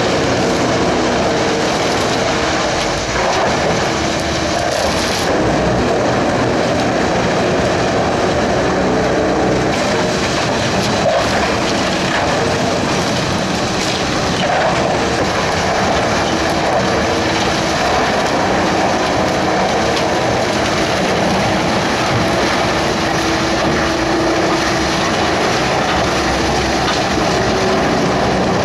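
Industrial wood chipper running steadily: a loud, even mechanical noise with a constant hum under it.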